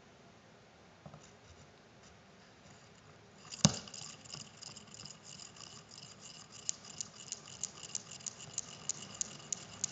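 Newton's cradle set going. One sharp click of a steel ball striking about a third of the way in, then the steel balls clacking in an even rhythm about three times a second, the clacks growing louder in the last few seconds.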